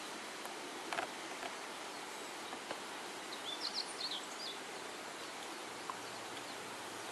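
Steady outdoor background hiss over open country, with a few short high bird chirps a little before the middle and a faint click about a second in.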